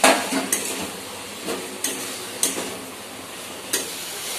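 Steel spatula knocking and scraping against a metal kadhai while fried potatoes and cauliflower are stirred into the masala, over a low sizzle. There are about six sharp knocks, the loudest right at the start.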